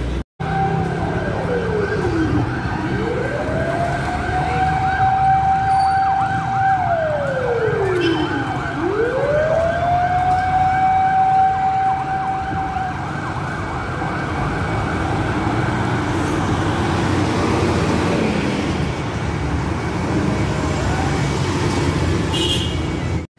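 Fire truck siren wailing: a high held tone that slides down and sweeps back up, twice, about six seconds apart, then stops about halfway through. After that only the trucks' engines and street traffic run on.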